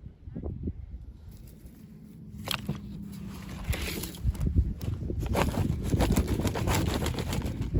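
Toy packaging being handled and opened: irregular crinkling and clicking, getting louder about two and a half seconds in.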